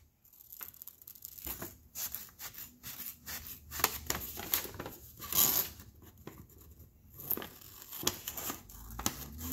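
Scissors cutting through a printed paper sheet in a run of short, irregular snips, with the paper crinkling as it is handled.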